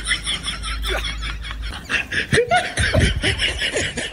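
Laughter in quick repeated bursts, with a short pitched vocal sound about two and a half seconds in.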